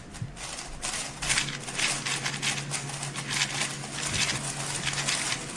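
Rubik's cube being turned at speed during a speedsolve: rapid, irregular plastic clicking and clacking of the layers. A faint low steady hum sits under it until near the end.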